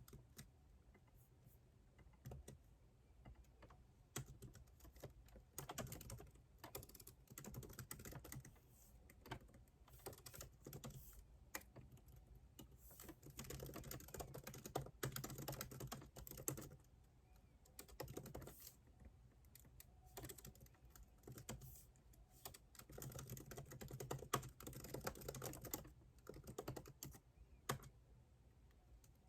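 Typing on a computer keyboard: quick runs of key clicks in bursts separated by short pauses.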